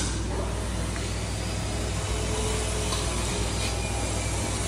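Jeera (cumin) grinder machine running steadily while it grinds, a constant low hum under an even, unbroken noise.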